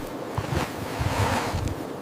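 Wind blowing in irregular gusts, a steady rushing noise with buffeting low rumbles.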